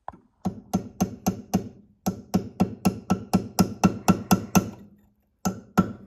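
Small hammer striking a steel pin punch in quick, ringing metal taps, about four a second: a short run, a brief pause, a longer run, then two more taps near the end. The punch is driving a Woodruff key out of the keyway of an engine shaft.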